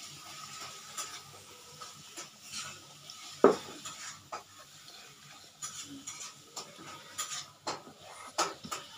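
Scattered light clicks and knocks of fingers working rice on a plastic plate and of dishes being bumped on the table, with one sharp knock about three and a half seconds in.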